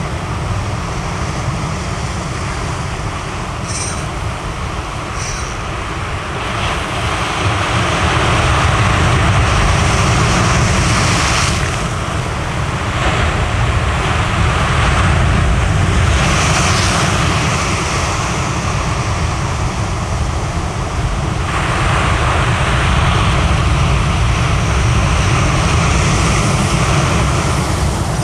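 Ocean waves breaking on a rocky shore, with wind rumbling on the microphone. The roar swells louder several times as the sets come in.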